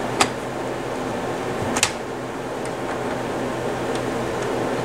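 Steady mechanical hum in a small room, with two sharp clicks about a second and a half apart.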